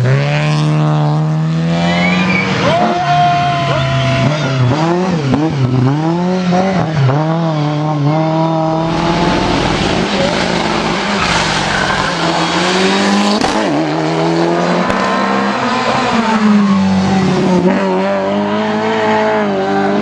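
Rally car engines revving hard through tight bends, the pitch climbing and dropping again and again with throttle and gear changes, with tyre squeal. For several seconds in the middle the sound turns rougher and noisier as a car comes close.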